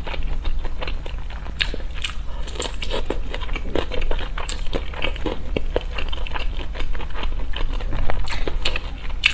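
Close-miked biting and crunchy chewing of food: irregular crisp crackles and crunches, a few every second.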